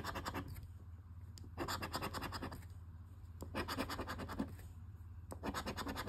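Scratch-off lottery ticket being scraped with a hand-held scratcher, its coating rubbed away. The scraping comes in four short bursts of rapid strokes, about two seconds apart.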